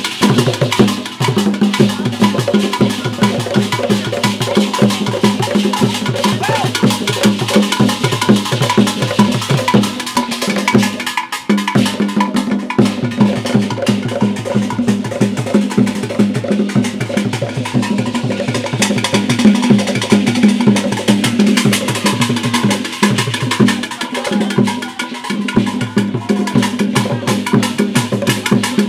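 Traditional drumming on tall carved wooden hand drums, a fast, steady rhythm of many sharp strokes with a brief break about eleven seconds in.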